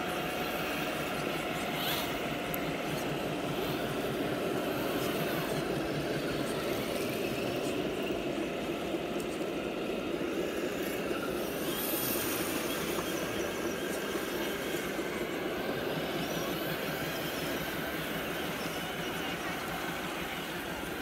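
Electric motors and gearboxes of several radio-controlled scale crawlers running steadily as they drive through mud and water.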